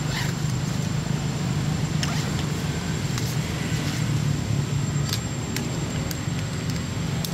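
A steady low hum, with a thin high whine above it and a few sharp clicks scattered through it.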